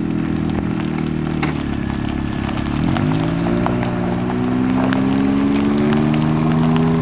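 Vehicle engine running loudly, its pitch dipping about three seconds in and then climbing steadily as it accelerates.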